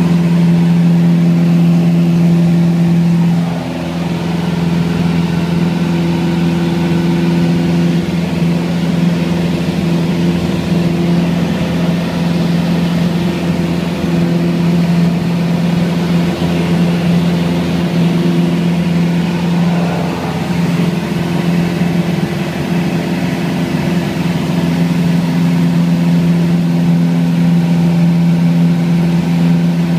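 Cabin noise of a small propeller plane: the engine and propeller drone steadily during the climb after take-off, with a strong low hum that wavers briefly about three seconds in and again about twenty seconds in.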